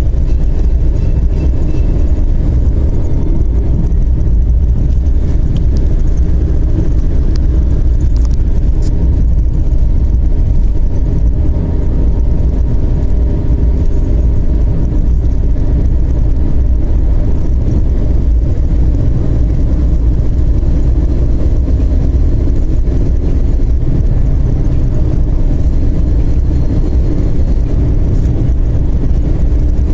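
Turbodiesel (TDI) car cruising steadily on a highway: a constant low drone of engine, tyres and wind, with a faint thin steady whistle from the turbo above it.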